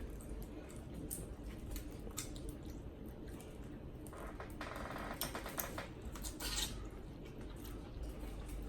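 Wet eating sounds: chewing and sauce-coated seafood boil being handled, with scattered small clicks and a short rasping stretch around the middle.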